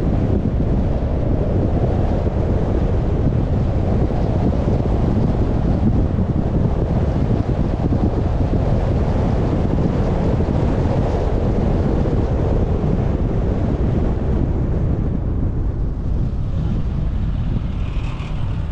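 Wind buffeting the microphone over the steady road noise of a moving car. It eases slightly near the end.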